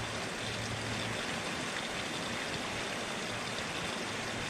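Shallow creek water running over rocks: a steady, even rush.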